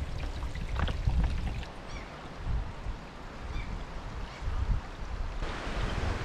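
Small stream trickling over rock while a plastic bottle is filled from it.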